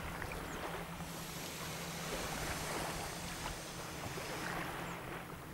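Wind buffeting an outdoor microphone, a steady rough rush, with a low steady hum underneath.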